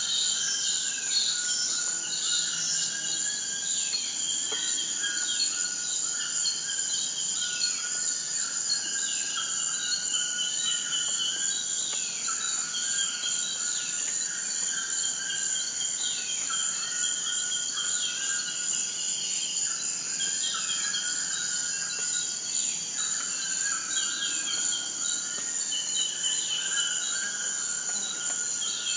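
Insects chirping steadily, a continuous high-pitched trill with short repeated calls, some falling in pitch, recurring about once a second.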